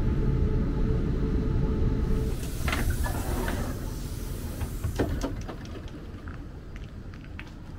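Passenger train drawing to a stop at a station platform: its rumble and steady whine cut out about two seconds in, followed by a hiss of air and several clunks as the doors slide open, then the train noise dies down.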